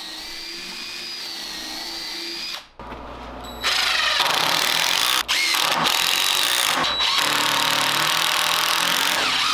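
Cordless drill spinning a pocket-hole bit in a pocket-hole jig, a steady whine. About three and a half seconds in, a cordless impact driver starts hammering pocket screws into 2x4s. It is much louder and rattling, with two brief breaks.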